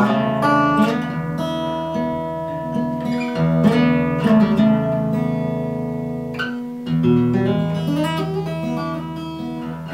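Solo acoustic guitar played fingerstyle: single picked notes ringing out over sustained bass notes, with no singing.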